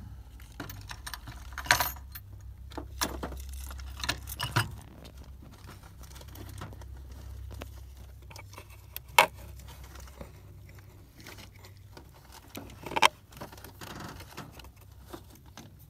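Small metal parts clinking and rattling as someone rummages through a container of RC parts, with a few sharper clicks now and then over a low steady hum.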